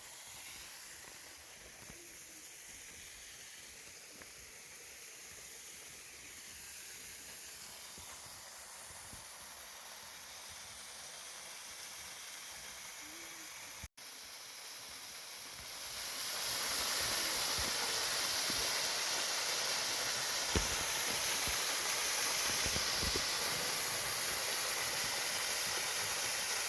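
Steady rushing hiss of a waterfall, broken by a short drop-out near the middle and clearly louder from about sixteen seconds in.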